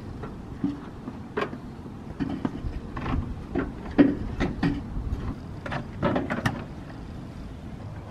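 Irregular light clicks and knocks of hard parts being handled as a TurboSmart blow-off valve and its blue silicone coupler are fitted by hand to a turbo intercooler pipe, the loudest knock about four seconds in.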